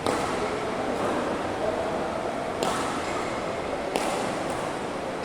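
Badminton rackets striking the shuttlecock in a rally: three sharp hits, the second about two and a half seconds after the first and the third a second and a half later, over a steady hubbub in a large echoing hall.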